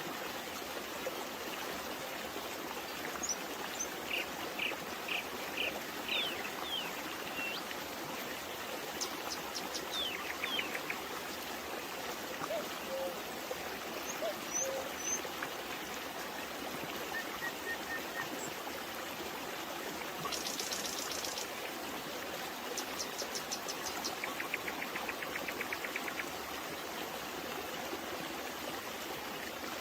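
Babbling brook running steadily, with songbirds calling over it in short phrases and rapid trills, several times.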